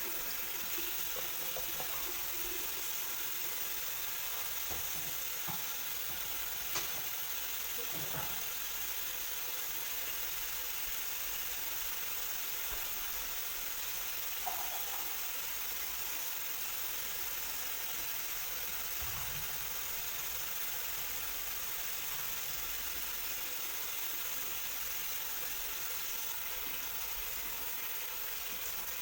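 Steady hiss of background noise, with a few faint clicks and knocks in it.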